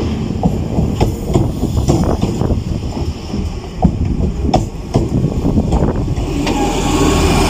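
Double-deck electric commuter train rolling along the platform, its wheels clicking irregularly over the rail joints under a low rumble. Near the end the clicking stops and a steady hum takes over.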